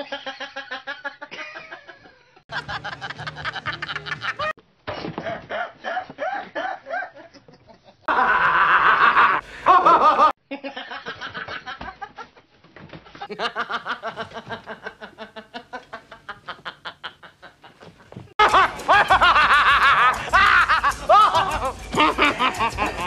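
A man's laughter in a string of separate clips joined by abrupt cuts: runs of rhythmic laughing pulses, several a second, changing in sound at each cut, loudest in the last few seconds.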